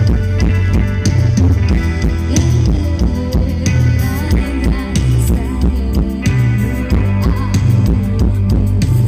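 Band music with a heavy drum and bass beat and guitar.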